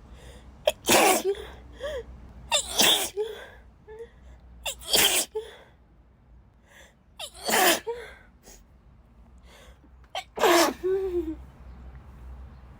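A woman sneezing five times in a row, each sneeze loud and sharp, about two to three seconds apart, with short gasping catches of breath between them.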